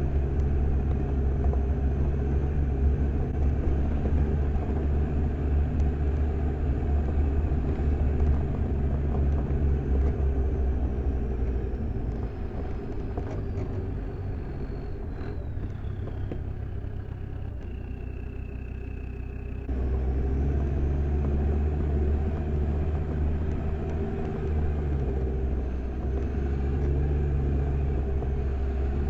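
Land Rover Defender 90's Td5 five-cylinder turbo-diesel driving on a dirt track, a steady low rumble. Partway through it drops quieter for several seconds while a high whine slides down in pitch, then it comes back up abruptly about twenty seconds in.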